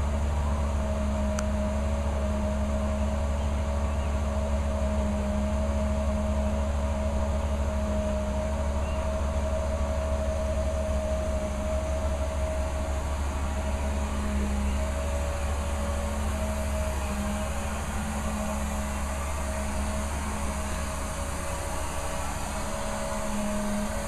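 Truck-mounted carpet-cleaning machine running in the van, a steady mechanical drone with a constant hum, getting a little quieter over the last few seconds.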